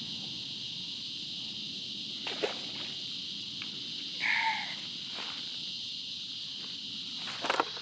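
Steady high-pitched drone of an evening insect chorus, with a few short knocks or rustles close by and one brief two-toned call about four seconds in.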